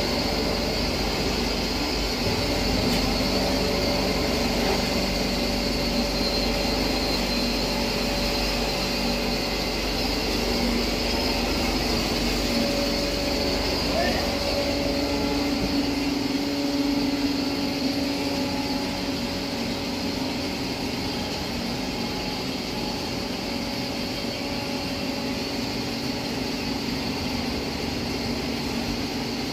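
A 20 HP electric-motor-driven blower pulverizer (hammer mill with fan blower and cyclone) running steadily under load as rice husk is fed into its hopper and ground into powder. It gives a constant machine noise with a few steady tones, and the low rumble eases slightly about halfway through.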